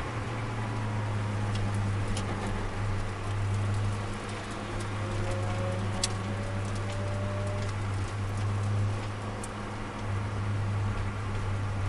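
Turbocharged Nissan Micra engine heard from inside the cabin, running at steady revs as a low drone, with tyre and road noise and a few faint clicks.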